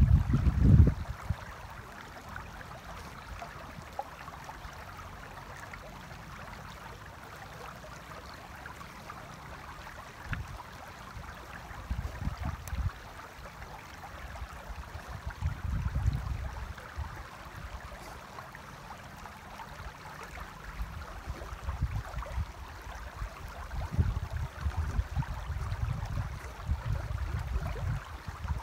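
Shallow river running over stones, a steady rush of water, with gusts of wind buffeting the microphone now and then, strongest in the first second and again through the last several seconds.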